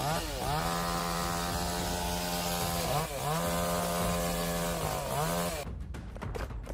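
Two-stroke chainsaw running at high revs with a steady high note, dropping in pitch and climbing back three times. Near the end the engine note gives way to a quieter, irregular clicking rattle.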